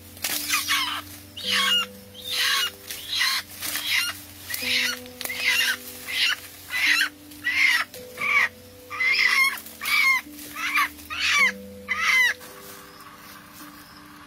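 Rooster squawking loudly and repeatedly while it is grabbed and held, a rapid series of short falling squawks, one or two a second, that stops near the end. Soft background music with sustained notes plays underneath.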